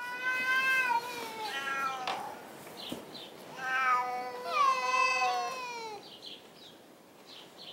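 Two domestic cats caterwauling at each other: long, wavering yowls in two bouts, the second starting about three and a half seconds in, with the two voices overlapping at times. It is a yowling standoff, a threat display in place of a fight.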